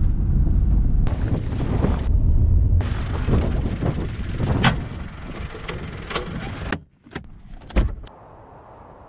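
Car on the move, a steady low rumble with scattered clicks, which cuts off sharply about seven seconds in; two short knocks follow, the second and louder one near the end.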